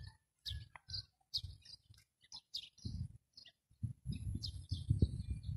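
Small birds chirping in short, repeated calls, with gusts of wind rumbling on the microphone, heaviest in the second half.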